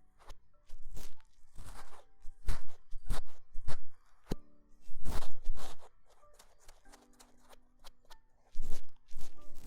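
Ear-cleaning ASMR: an ear pick scraping and rustling in a microphone's ear in short strokes, a few a second, with a quiet pause in the second half. Soft background music plays underneath.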